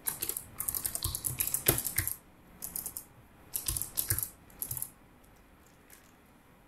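Typing on a computer keyboard: a run of quick key clicks lasting about two seconds, then a few shorter bursts of keystrokes with pauses between them.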